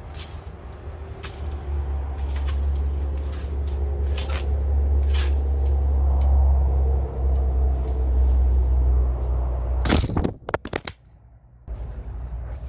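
A leaf rake scraping and scratching through sawdust and wood chips on a dirt floor, in irregular strokes over a steady low rumble. About ten seconds in come a few sharp knocks, then it drops briefly quiet.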